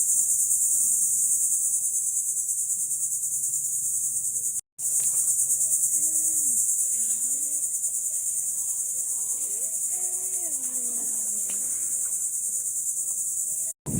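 Steady, high-pitched buzzing chorus of insects, with a very short break a little under five seconds in.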